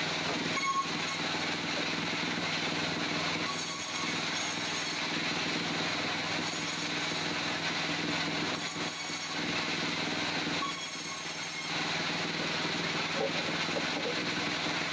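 Band sawmill's engine running steadily, with short hissing bursts every couple of seconds.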